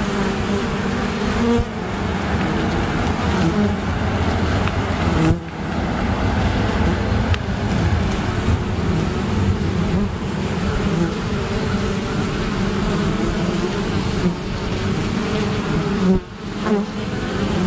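Honey bees buzzing in flight at a hive entrance. A steady drone of many wings, with single bees' hums rising and fading as they pass close by.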